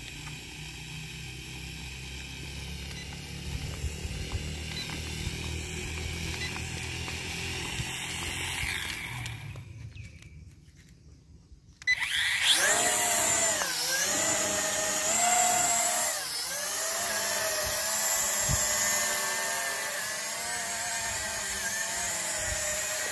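TC-3 folding toy quadcopter's propeller motors whining, faint at first under wind rumble on the microphone. After a couple of seconds of near quiet the motors spin up loud and close, their high whine dipping and rising in pitch with the throttle.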